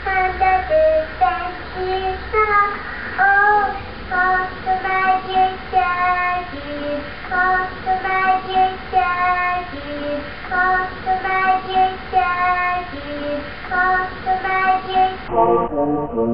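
A young girl singing a song unaccompanied: a run of short, held sung notes.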